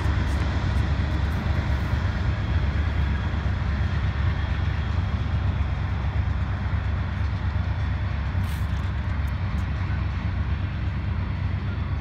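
Freight train hauled by BNSF GE Evolution-series diesel locomotives rolling away: a steady low rumble of engines and wheels on rail that slowly fades.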